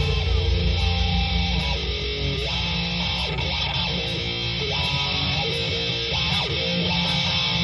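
Rock band playing an instrumental passage: electric guitar picking out a melodic line of short notes over a steady distorted guitar and bass backing.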